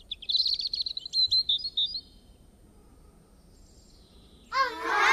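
Birds chirping in a quick run of high, bright calls for about two seconds, then a pause. Near the end, music with sliding, bending notes begins.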